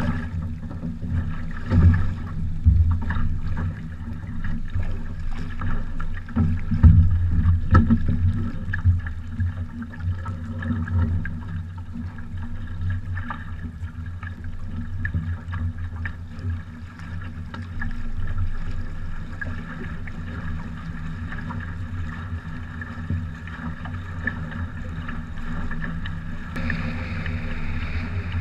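Water rushing and slapping along a sailing trimaran's hull, with wind buffeting the microphone as a low rumble and a few heavier bumps in the first few seconds. Near the end a brighter rushing hiss of water comes in.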